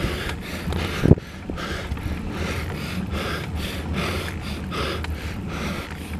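A cyclist's hard, rhythmic breathing, about two breaths a second, on a long uphill climb, over low wind rumble on the microphone. A single knock comes about a second in.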